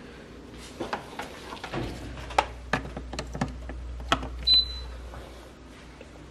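Scattered light clicks and knocks of household objects being handled, about a dozen irregular hits, with a short high beep about four and a half seconds in.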